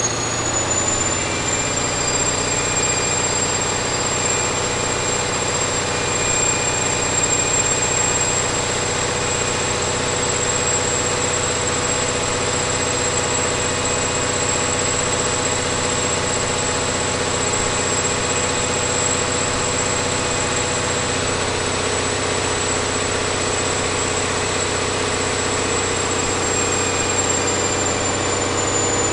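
Caterpillar 3508B V8 diesel engine running steadily on a dynamometer, with a thin high whine above the engine note that rises slightly about a second in and drops away near the end.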